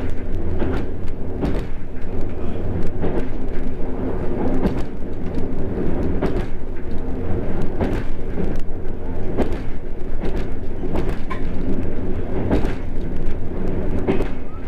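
Electroputere 060-DA diesel-electric locomotive's Sulzer 12-cylinder diesel engine running steadily under heavy load on an uphill climb, heard from inside the cab. Frequent sharp clicks and knocks run over the engine note.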